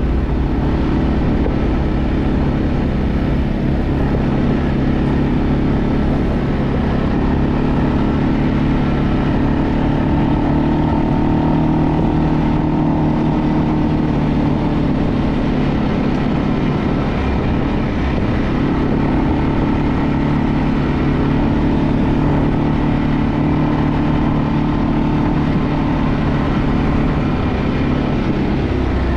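Segway Snarler AT6 L ATV's 570 cc single-cylinder four-stroke engine running steadily under way, its pitch rising a little for a few seconds now and then as the throttle changes.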